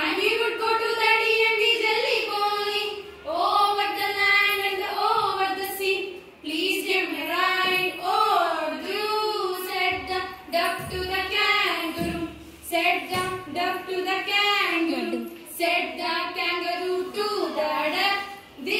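Young girls' voices singing the lines of a poem to a simple, slow tune without instrumental accompaniment, in phrases of held notes with brief pauses for breath.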